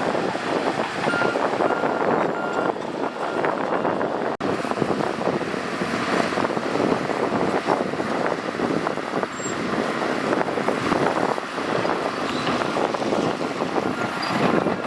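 Shantui bulldozer working, its diesel engine running loud and steady under load with rattling and clanking from the machine. A faint series of evenly spaced reversing beeps sounds in the first few seconds, and the sound cuts out for an instant about four seconds in.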